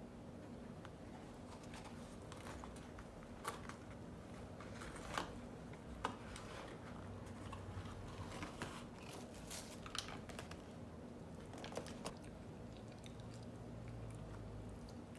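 Close-up eating of Chick-fil-A fast food: scattered crisp crunching bites and chewing, a handful of sharp crackles spread through a steady low background hum.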